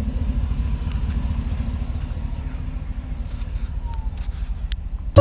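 Chevrolet pickup truck's engine idling: a steady low rumble with an even pulsing beat.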